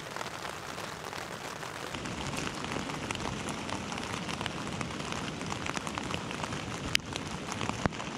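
Steady rain pattering on a tent, a dense even patter of many small drop ticks. Two sharp clicks sound near the end, about a second apart.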